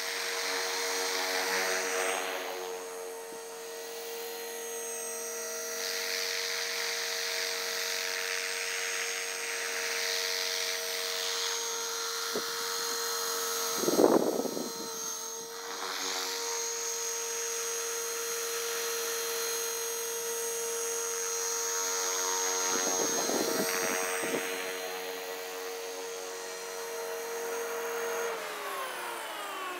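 Blade 450 electric RC helicopter flying overhead: a steady high whine from its motor and rotor, with one brief louder burst about halfway through. Near the end the whine drops in pitch as the rotor slows.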